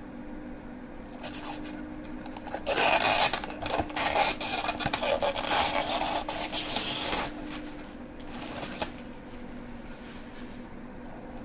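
Tape and clear plastic being peeled off a clear acrylic frame: a crackling, tearing noise that starts about three seconds in and lasts some four seconds, with quieter rustling of plastic around it.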